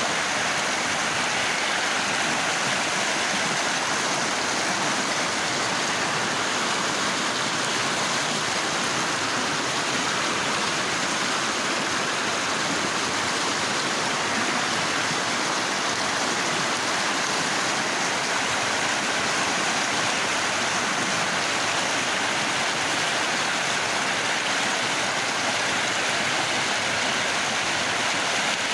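A river in flood after heavy rain, its muddy, silt-laden water rushing past in a steady, unbroken rush.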